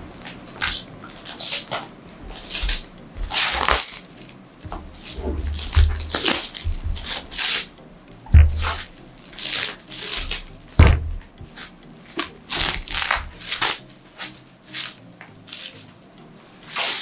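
Clear plastic wrap being pulled off a cardboard box, crinkling and rustling in irregular bursts, with a couple of dull thuds as the box is handled.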